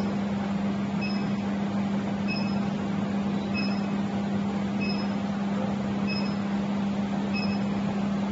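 Portable induction heater running as its handheld copper coil heats a steel cylinder: a steady low hum with a short high beep repeating about every 1.2 seconds.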